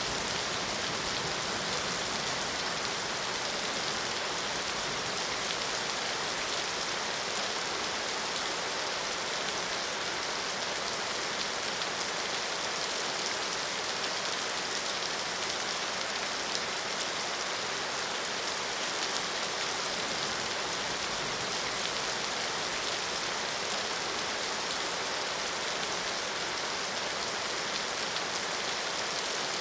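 Steady rain falling on a surface, an even hiss with fine pattering drops that holds unchanged throughout.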